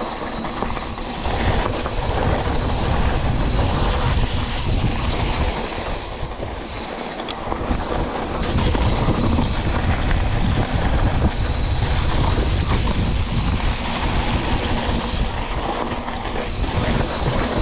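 Mountain bike rolling fast down a rough dirt trail: continuous rumbling and rattling of tyres and frame over the bumps, easing briefly about six seconds in.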